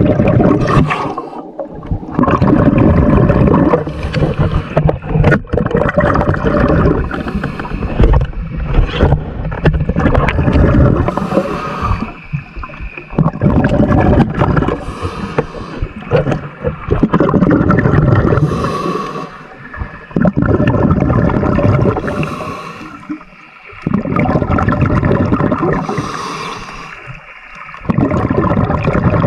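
Muffled underwater rumbling and gurgling of water moving around a camera carried by a diver, swelling and fading every few seconds, with short hissy bursts in between.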